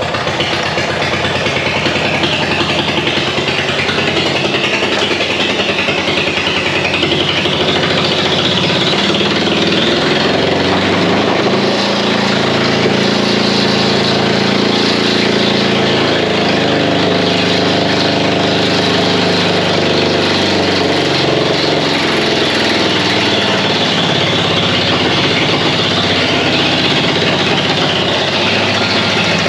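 Ford Ranger engine running on spray paint sprayed into its intake, with a connecting rod broken out through the block and oil pan. It runs steadily, and its speed rises and falls in the middle.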